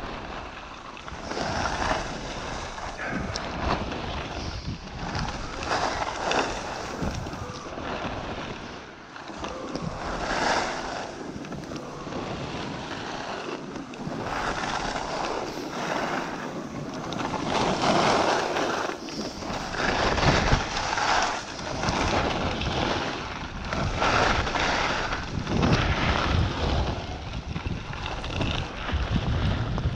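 Wind rushing over the microphone, swelling and fading every second or two.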